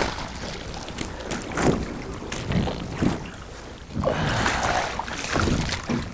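Wind buffeting the microphone on an open fishing boat, with water noise and several sharp knocks and splashes; the rush of noise swells about four seconds in.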